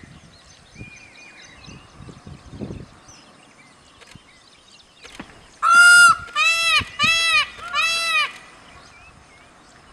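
Peacock (Indian peafowl) calling: four loud calls in quick succession about halfway through, each rising then falling in pitch, the first one the longest and loudest.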